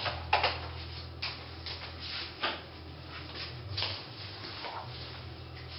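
Scattered small clicks and knocks of objects being handled, with a few louder taps early on, over a steady low hum.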